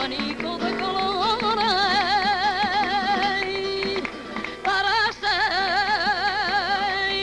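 A woman singing a flamenco song, holding long notes with a wide vibrato. The singing breaks off briefly about four seconds in, then resumes.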